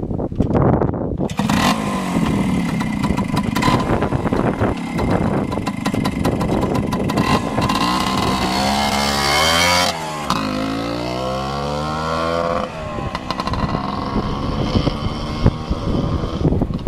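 Kawasaki F8 Bison 250TR's single-cylinder two-stroke engine kick-started, catching about a second in and running steadily. The bike then pulls away, revving up in two rising sweeps with a break at the gear change, and the sound changes as it moves off.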